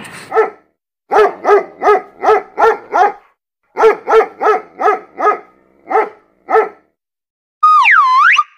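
A dog barking in quick, evenly spaced yaps, about three a second, in two runs with a short break between. Near the end, a short whistle that dips down and slides back up in pitch.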